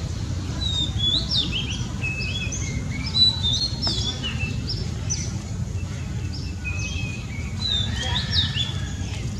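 Small birds chirping, with many short, quick, sharply gliding calls in close succession, over a low steady rumble.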